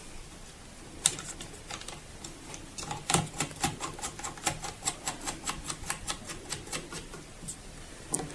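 Small clicks of a crosshead screwdriver driving a screw into a printer's paper holder: one click about a second in, then a run of about three clicks a second from about three seconds in until near the end.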